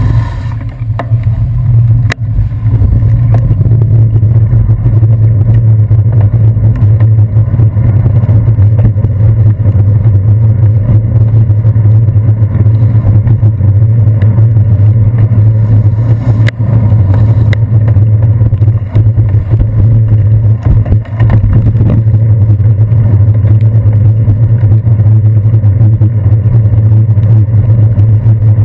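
Loud, steady low rumble picked up by a handlebar-mounted GoPro Hero 2 in its waterproof housing on a moving bicycle, from road vibration and wind, with city traffic beneath it. Two sharp knocks stand out, one about two seconds in and one near the middle.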